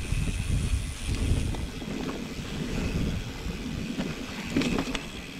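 Mountain bike being ridden, picked up by a GoPro on the rider: wind buffets the microphone over the rumble of the tyres on the ground. A few sharp rattles come near the end.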